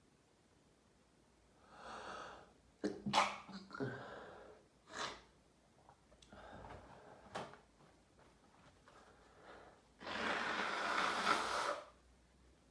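A man in a sneezing fit: a drawn-in breath, then several sharp sneezes in quick succession, another a couple of seconds later, and near the end a continuous rushing blast of about two seconds.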